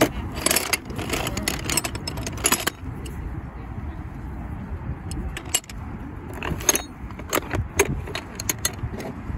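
Small loose metal objects clinking and jangling together in irregular clusters of sharp clicks, with a quieter lull in the middle.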